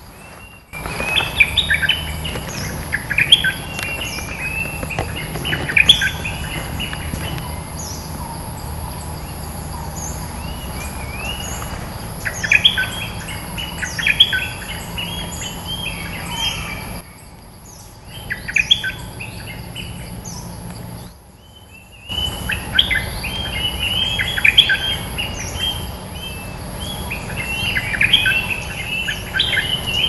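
Bulbul (Thai 'nok dok taeng') singing in repeated bouts of quick, bubbling whistled phrases, with short pauses between bouts. A steady thin high insect-like buzz runs underneath.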